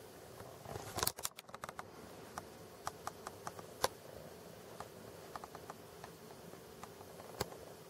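Sharp, irregular clicks and crackles of a cat biting and clawing at a coarse fibre toy, with a quick run of them about a second in and single clicks scattered after.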